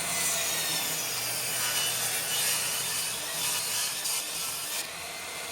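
A power tool cutting a notch into a wooden 2x2, a steady rasping cut over a low motor hum that eases slightly near the end.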